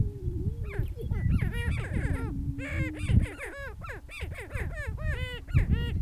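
Greater prairie chickens calling on their booming ground: a rapid, overlapping chorus of cackles and whoops starts about a second in, with a low held booming note underneath near the middle.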